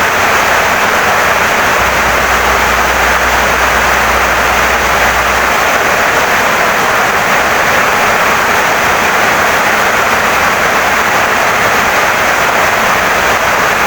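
Heavy rain pouring down steadily, an even hiss with no let-up. A low hum sits under it from about two seconds in until past the middle.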